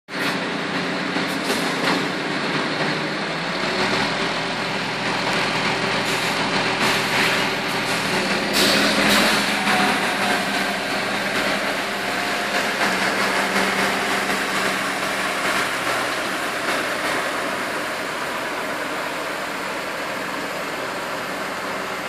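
Bitumen sprayer truck running steadily as its rear spray bar sprays hot bitumen onto the road: a broad hiss over a steady engine and pump drone.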